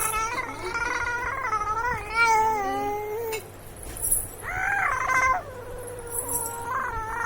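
Baby vocalizing in long, high-pitched squealing coos that waver up and down in pitch. A long one of about three seconds, a shorter one after a pause, and another beginning near the end.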